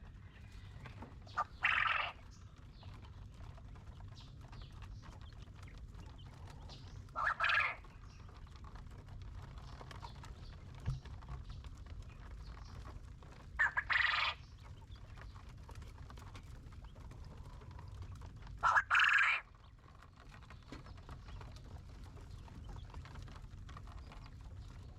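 Quail calling: four short calls about five to six seconds apart, each about half a second long, over a steady low rumble.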